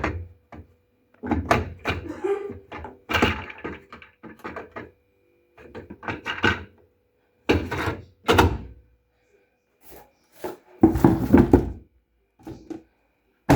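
A string of irregular thuds and knocks, like objects being handled and set down.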